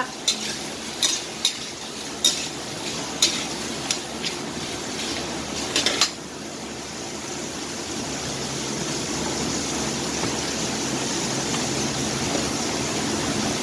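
Metal spatula knocking and scraping against a stainless steel wok while stirring shrimp frying in sesame oil: about ten knocks over the first six seconds. After that, only the steady sizzle of the frying goes on.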